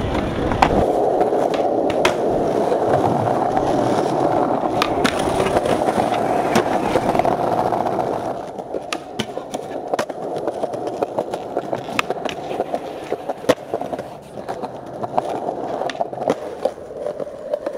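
Skateboard wheels rolling over concrete, with sharp clacks of the board's tail popping and the board landing. The rolling is louder for the first eight seconds or so, then quieter, with the clacks coming more often.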